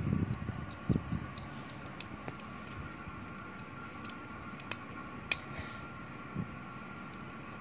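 Plastic Lego pieces clicking and tapping as they are handled and small round plates are pressed onto a brick-built tree, several separate sharp clicks between about two and five seconds in. A low rumble of hand movement comes near the start, over a steady faint hum.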